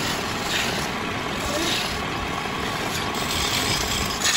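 Wood lathe running while a hand-held chisel cuts the spinning wooden bed leg: a steady cutting hiss over the motor, turning brighter a few times as the tool bites harder, strongest at the end.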